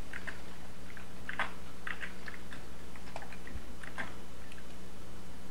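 Faint, irregular small clicks and ticks over a steady low hum.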